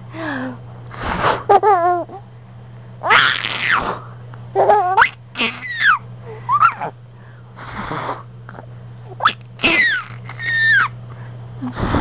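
A baby laughing in short bursts of high, sliding squeals and giggles, broken up by several short breathy bursts, over a steady low hum.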